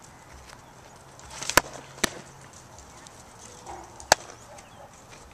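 A softball pitch popping into a leather catcher's mitt about a second and a half in, with a second sharp snap half a second later. Near four seconds the ball is thrown back and smacks into the pitcher's leather glove.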